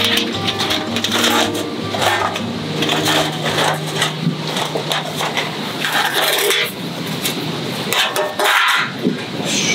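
Metal clanking and scraping as a folding wire-frame fire stand is set up and its worn, warped steel fire plate is handled and laid onto the frame, with several sharp clanks spread through.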